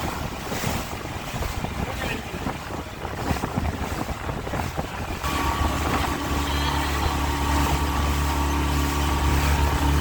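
Wind and water noise, then about five seconds in a boat's motor comes in with a steady low drone and runs on evenly.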